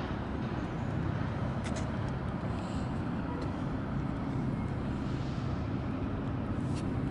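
Steady low rumble of city traffic, with a few faint clicks.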